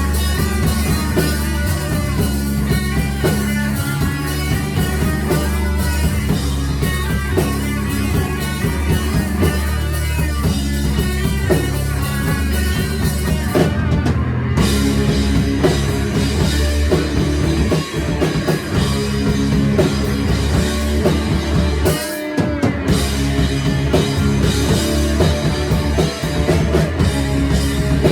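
Four-piece rock band playing live: drum kit, electric guitar and bass in an instrumental passage, with short breaks about halfway and again around three-quarters through.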